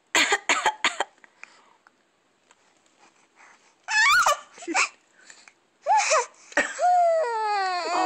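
A baby coughs: about four short coughs in quick succession, then a few brief vocal sounds and a long, falling whimpering cry near the end.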